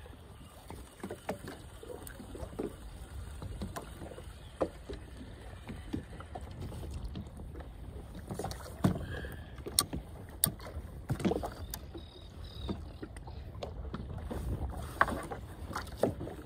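Small boat riding on the water, with a steady low rumble of wind and water. Scattered knocks and clicks come throughout, with the sharpest ones about nine to eleven seconds in and again near the end.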